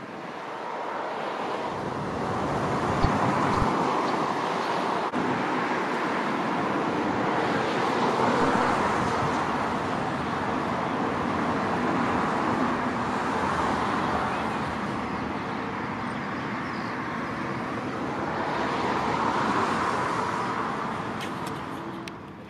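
Jet noise from a departing Boeing 747's four engines at climb power: a steady rushing noise that swells and eases a few times, with two short low thumps about three seconds in.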